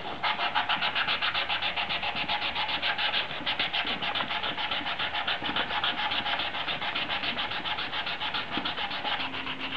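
Fine 500-grit wet sandpaper on a sanding pad rubbed by hand over the unpainted, molded-in-colour plastic of a Honda Africa Twin handguard, in quick, even back-and-forth strokes, several a second. It is smoothing out crash scratches in the plastic.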